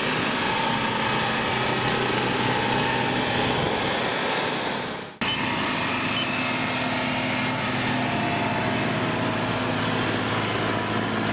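Kubota DC70 combine harvester's diesel engine running steadily at a constant pitch as the machine drives along on its tracks. The sound dips and cuts back in about five seconds in.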